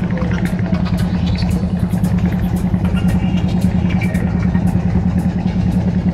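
Engine of a small wooden river boat running steadily, a fast, even low chugging.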